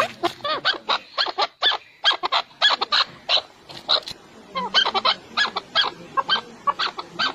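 Birds calling in rapid, overlapping series of short, sharp notes, several a second, with no pause.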